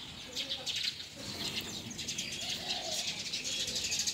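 A flock of small birds chirping busily in quick high notes, with low cooing calls underneath twice.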